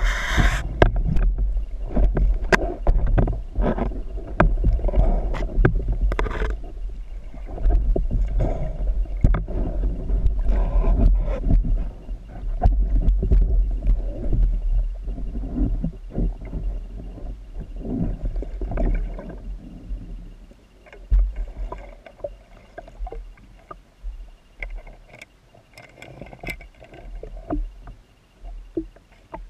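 Underwater sound picked up by a camera housing mounted on a speargun: a heavy low rumble of water moving past the housing, with many sharp clicks and knocks. A brief loud hiss opens it, and after about twenty seconds the rumble drops away, leaving scattered knocks.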